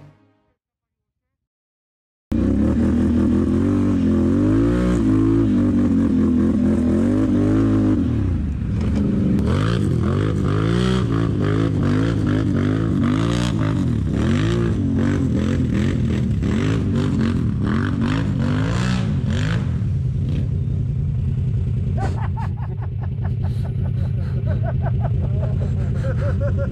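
About two seconds of silence, then quad-bike (Can-Am Renegade ATV) engines revving loudly, the pitch rising and falling again and again with the throttle. About 20 seconds in they settle to a steadier, lower running idle.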